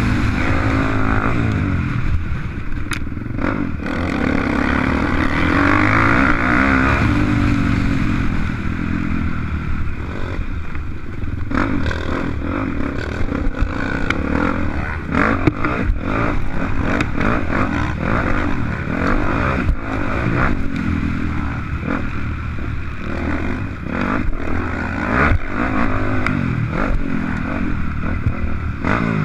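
Motocross dirt bike engine running hard, its pitch rising and falling again and again as it revs and shifts, with scattered sharp knocks and rattles over the track.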